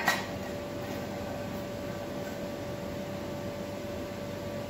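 A sharp metallic clank with a brief ring as hot steel in blacksmith's tongs is set down on the fly press's steel bed. It is followed by a steady mechanical hum with one fixed tone.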